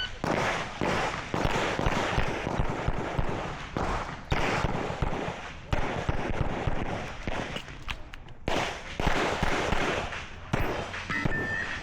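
Smith & Wesson M&P 2.0 pistol fired in quick strings of shots during a timed stage, with a short pause a little past the middle.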